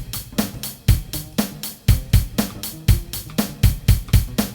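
Drum kit playing a steady groove: an even run of hi-hat or cymbal hits, about four to five a second, with bass drum and snare strokes among them, playing through a drum-notation example with repeat and first/second-ending signs.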